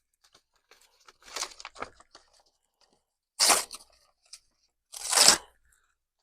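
New Fintiso Harpe folding knife being worked open by its thumb studs: scattered small clicks, then two louder rasping bursts about a second and a half apart. The pivot is stiff and needs breaking in.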